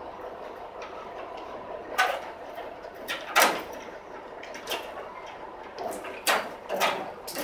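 Heavy timber and iron parts of an old cider press creaking, squeaking and knocking as the press is being dismantled. The sharp creaks and knocks are irregular: one about two seconds in, a pair near the middle, and several close together near the end.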